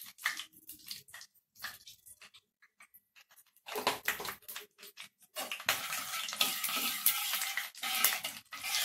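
A metal spoon clinks lightly against a non-stick pot as ghee goes into hot mustard oil with whole spices. From about five seconds in come a steady sizzle and the scrape of a steel spatula stirring the spices in the oil.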